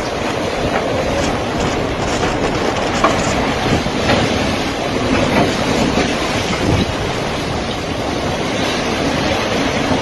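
Storm wind blowing hard through trees, a loud steady rush with heavy wind buffeting on the microphone.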